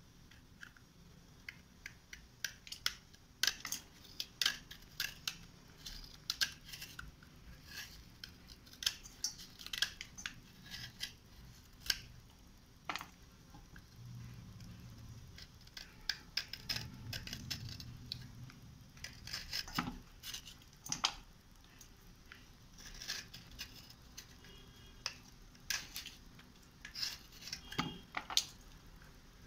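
Wet slate pencils and slate bars handled and rubbed by hand, clicking and scraping against each other in many irregular sharp clicks.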